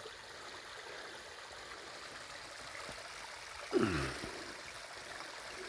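Steady hiss of a river flowing. About four seconds in, a person gives a short low vocal sound that falls in pitch.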